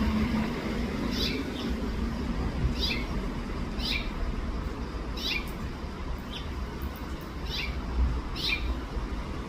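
House finch calling: a string of short, falling chirps, about one a second, over a steady low background rumble.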